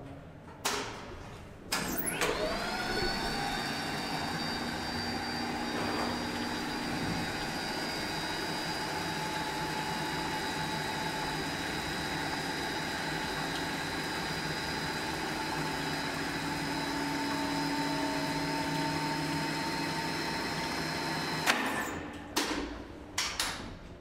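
Old geared elevator hoist machine starting and running: two sharp clacks, then the motor spins up with a rising whine and runs steadily for about twenty seconds before stopping with a series of clacks and clunks.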